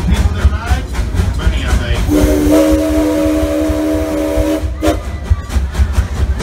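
Steam locomotive's chime whistle blowing one long, steady blast of several notes at once, lasting about three seconds and starting about two seconds in, over a low rumble.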